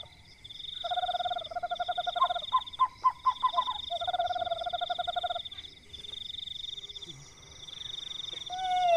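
Frogs calling at night in trains of rapid pulsed notes, over a high pulsing trill that repeatedly breaks off and resumes. Near the end comes a loud falling call.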